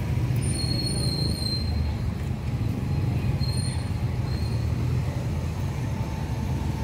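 Street traffic with motorcycle and tricycle engines running, a steady low rumble. A thin, high squeal sounds briefly twice.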